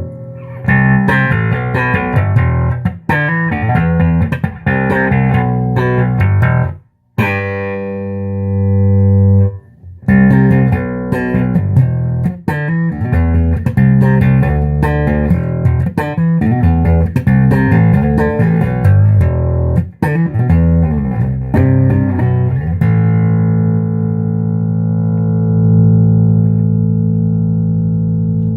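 Fender '57 reissue Precision Bass played through a 1966 Ampeg B-15N Portaflex tube amp, picked up by a phone microphone: a quick run of plucked notes, a short break and a held note about seven seconds in, then more notes and a long sustained note ringing out over the last five seconds.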